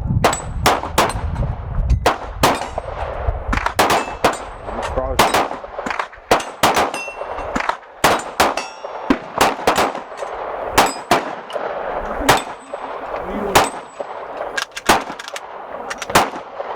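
Repeated pistol shots from a 9 mm Glock 19 Gen 5, mixed with other shooters' gunfire on the range, and steel targets ringing with a sharp metallic ding when they are hit. The shots come irregularly, several a second at times.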